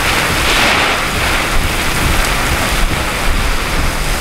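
Heavy wind-driven rain pouring down in strong, gusting thunderstorm winds: a loud, steady hiss of rain over a low, uneven rumble of wind. These are the damaging winds around a rain-wrapped tornado.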